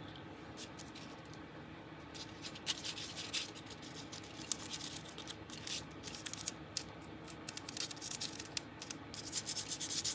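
Hands rubbing and pressing over a sheet of parchment paper laid on a crinkled, gesso-coated paper page. The scratchy rustling strokes are sparse at first, grow busier from about two seconds in, and are densest near the end.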